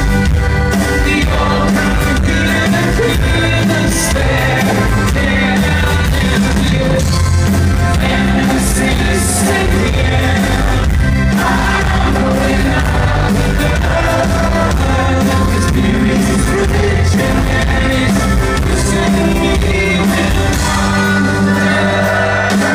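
Live folk-rock band playing through a venue PA, with acoustic guitars, accordion, fiddle and drums under singing.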